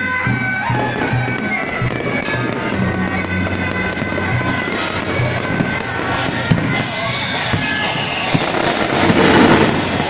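Aerial fireworks crackling and bursting, with sharp bangs about six and a half and eight and a half seconds in and a louder surge of crackling near the end. Music plays underneath.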